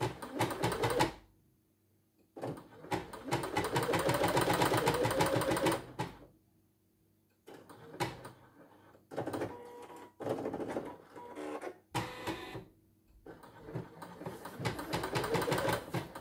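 Singer Quantum Stylist computerized embroidery machine stitching in several bursts of rapid needle strokes with short pauses between. In the longer runs the motor's pitch rises as it speeds up.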